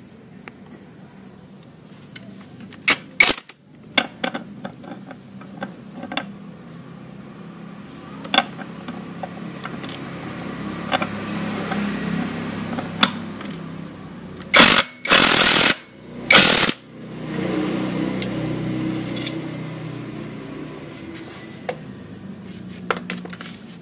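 JLD cordless impact wrench with a 39/41 mm socket hammering the centre nut off a scooter's CVT rear clutch assembly. It comes in three loud bursts a little past the middle, with sharp clicks and knocks from handling the parts before them.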